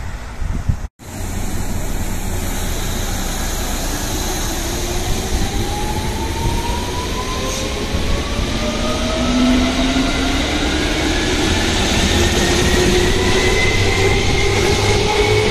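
Seibu Railway 2000 series electric train pulling away from a station. Its traction motors whine in several tones that rise steadily in pitch as it gathers speed, over a low rumble of wheels on rail.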